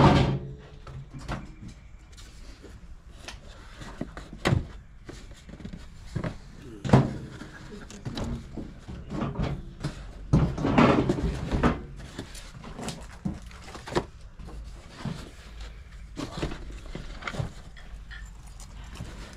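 Scattered knocks and bumps of objects being handled, the loudest about seven seconds in, with a longer stretch of rustling around ten to twelve seconds.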